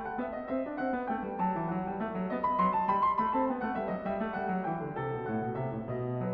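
Background piano music: a melody over held chords.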